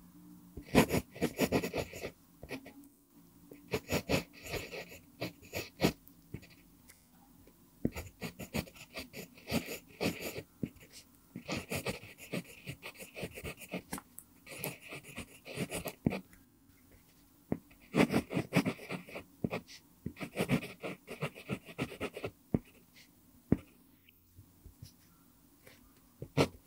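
Pentel PG5 0.5 mm mechanical pencil with a mpingo wood barrel writing cursive on lined paper: the lead scratches across the paper in quick strokes, grouped into words with short pauses between.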